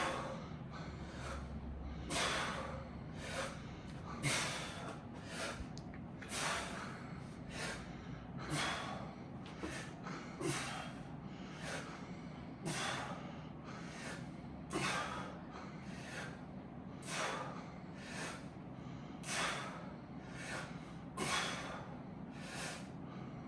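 A person breathing hard through the nose and mouth during a set of dumbbell shrugs, one sharp breath about every second. The breaths are out of step with the lifts: the breathing is wrong for the exercise, which should breathe out on the way up.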